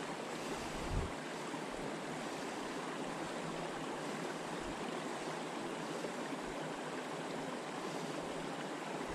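Steady rushing of creek water at a beaver dam, an even hiss with no breaks, and a faint low bump about a second in.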